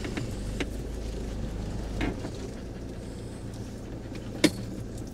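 Camping-car engine running at low speed, heard from inside the cab as a steady low rumble, with a sharp click about four and a half seconds in.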